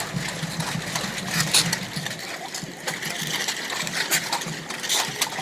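Marathon runners' shoes crushing discarded plastic drinking cups on the road: a dense, irregular crunching and crackling of plastic.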